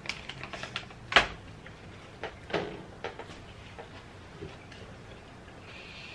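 Scattered sharp clicks and crackles of a snack bag being handled and food being eaten at a table, the loudest about a second in.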